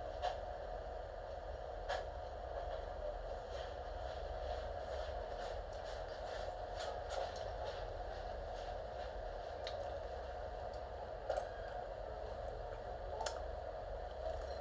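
Quiet room tone: a steady low hum, with a few faint short clicks now and then.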